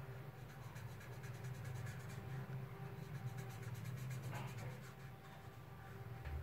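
Black marker scratching across paper in quick shading strokes, busiest in the first two seconds, over a low steady hum.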